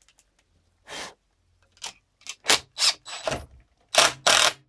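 A run of short, sharp scraping and clattering noises, about a dozen of them, sparse at first and coming faster and louder in the second half: work noise as tools and parts are handled while a ski binding plate is being mounted.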